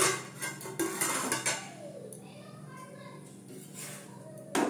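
Metal spatula clinking and scraping against an iron tawa as a paratha is lifted and turned while it dry-roasts before any oil goes on. There are a few short clatters in the first second and a half and a sharp clink near the end.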